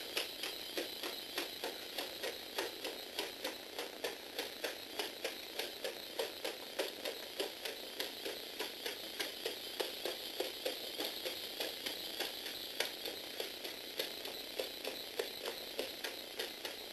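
Lego Technic four-legged walking robot running: a Power Functions motor and plastic gear trains whir steadily, while its linkage-driven feet clack on a wooden floor about three times a second.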